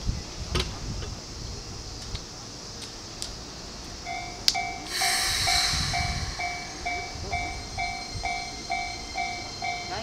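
A Japanese railway level crossing alarm starts about four seconds in: a steady two-tone electronic ding at roughly two strikes a second. Just after it comes a short, loud burst of air hiss from a Keikyu 1000-series train, its air brakes releasing as it starts to depart, over a low rumble of trains.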